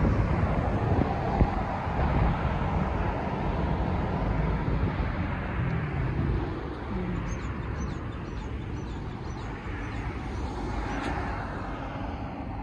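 Steady city road traffic: a low rumble of car engines and tyres on tarmac, with a brief swell of tyre hiss near the end.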